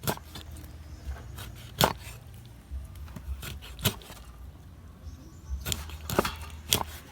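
Scattered sharp knocks and clatter of kitchen food preparation, about six at irregular intervals with two close together near the end, over a low steady hum.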